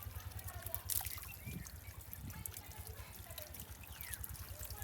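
Water trickling and splashing, with scattered sharp clicks and a louder knock about a second in, over a steady low rumble.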